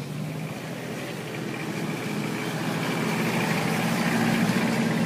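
A vehicle engine running, growing steadily louder as it draws near.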